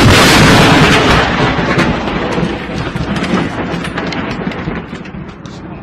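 Thunderclap from a very close lightning strike: a sudden, very loud crack that then rumbles and crackles away over several seconds.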